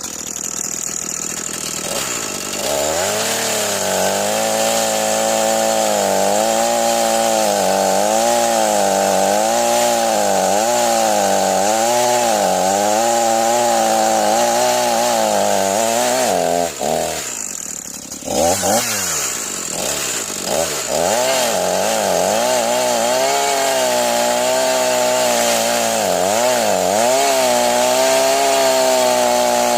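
Echo CS-490 two-stroke chainsaw running under load, cutting wood, its engine pitch wavering up and down with the cut. About seventeen seconds in it briefly drops off, then revs back up and carries on cutting.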